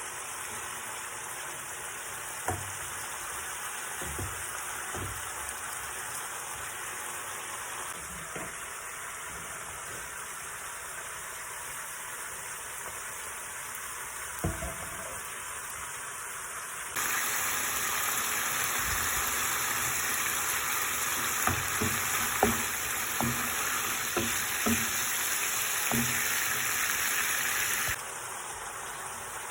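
Food frying in hot oil in a pan: a steady sizzle with occasional knocks of a utensil against the pan. The sizzle gets louder and brighter for about ten seconds from a little past the middle, with more knocks during that stretch.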